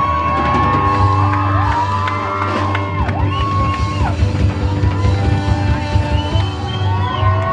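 Live band with saxophone, upright double bass and drums playing, the lead line a run of long held notes that slide down at their ends. Audience whoops and shouts over the music.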